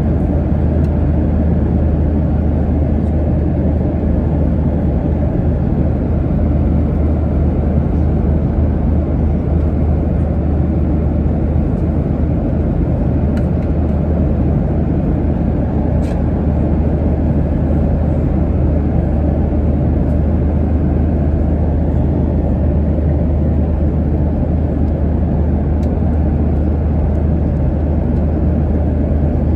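Steady low roar of engine and airflow noise in the economy cabin of a Boeing 737-900 airliner in flight, even and unchanging throughout.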